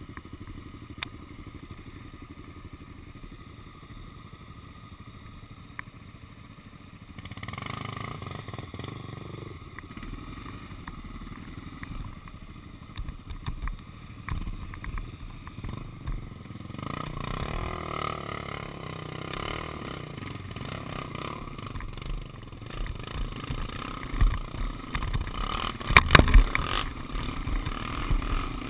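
Honda 400EX quad's single-cylinder four-stroke engine running as it is ridden over rough grass, picking up about a quarter of the way in. Near the end come a few loud clattering knocks as the quad rides over rough ground.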